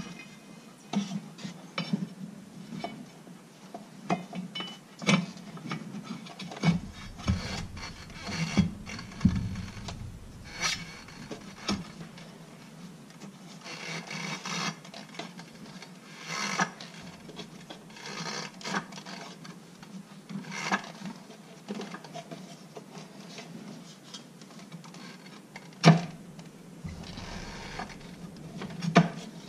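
Irregular clicks, knocks and scraping from hand tools and metal parts being worked on a clutch, with a rubbing, rasping sound at times. There is a sharper knock about 26 seconds in.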